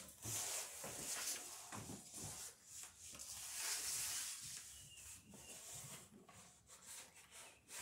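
Stiff sailcloth rustling and rubbing as it is handled, in uneven swishes and scrapes.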